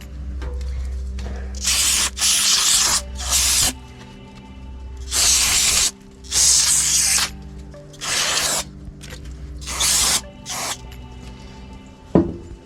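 Short hissing spray blasts, about seven in a row with gaps between them, cleaning grime off a small four-stroke tiller engine around the carburetor. One sharp knock near the end.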